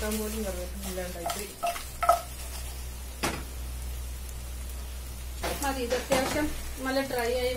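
Chicken roast frying with a light sizzle in a stone-coated nonstick pot. It is stirred with a spoon that scrapes and clicks against the pan several times, with a cluster of knocks near the end.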